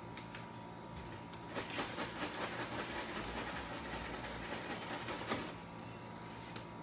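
Hot oil sizzling and crackling as breaded cheese sticks fry in a pan. The crackling thickens from about a second and a half in and dies down again after about five seconds, with one sharp pop just before it eases.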